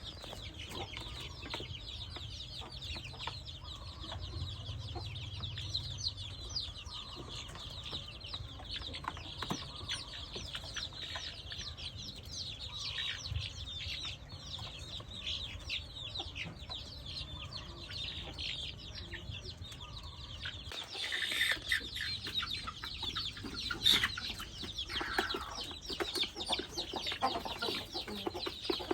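A group of young chickens peeping and cheeping continuously, with many short, high calls overlapping. The calls grow louder and busier about two-thirds of the way through.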